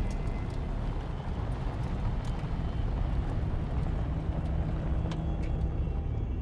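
Car driving along a potholed gravel track, heard from inside: a steady low rumble of road noise with scattered light clicks.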